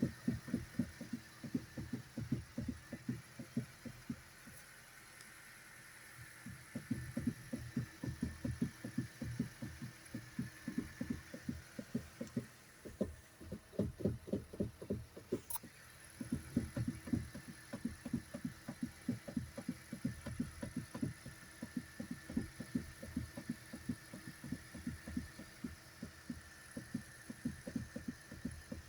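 Rapid, irregular low knocking from the steering of a 2013 Hyundai Elantra, a fault of unknown cause. The knocking stops twice for a few seconds, and there is a single sharp click about halfway through.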